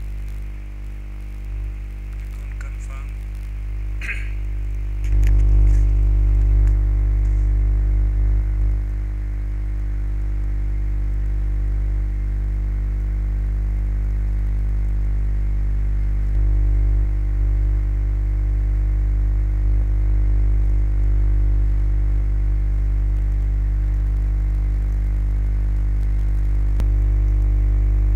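Steady low electrical hum with a stack of overtones, stepping up in loudness about five seconds in, with a few short clicks around four seconds in.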